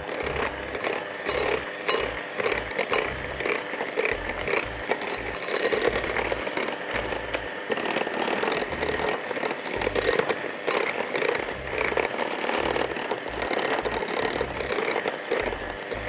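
Electric hand mixer running, its beaters working cocoa powder and coffee into a wet cake batter, with an uneven clatter.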